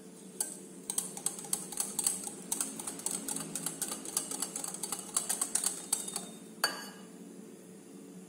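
Stainless steel wire whisk clicking rapidly against a glass bowl as flour is whisked into a batter of eggs, butter and curd. The clicking stops about six seconds in, followed by one sharper knock.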